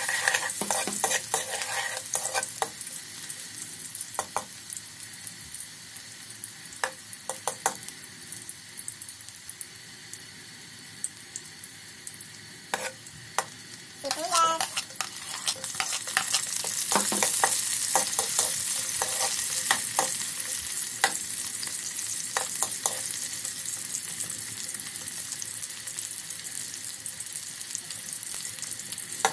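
Minced garlic sizzling in oil in a steel wok, with a metal ladle scraping and clicking against the pan. About halfway through, chopped onions are tipped in with a short squeak, and the sizzling grows louder.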